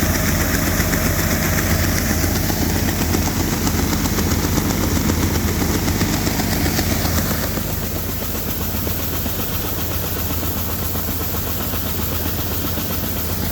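Large diesel farm engine running steadily at a constant speed, with a broad hiss over it. The hiss and overall level drop slightly about seven and a half seconds in.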